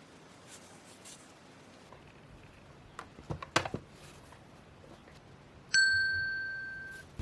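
A piece of metal struck once and ringing with a clear ding that fades for about a second before stopping abruptly, preceded a couple of seconds earlier by a few light knocks.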